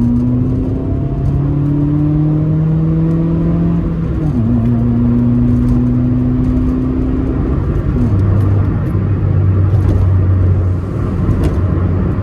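Nissan Micra K11 engine pulling through the gears on a manual gearbox, over road noise. The engine note rises for about four seconds, drops with a gear change, then holds steady, with another brief dip about eight seconds in.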